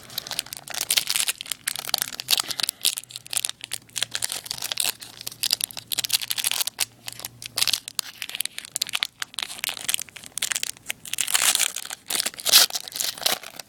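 Foil wrapper of a 2011-12 Series 2 hockey card pack crinkling and tearing as it is opened and the cards are handled: a dense, irregular run of crackles, busiest near the end.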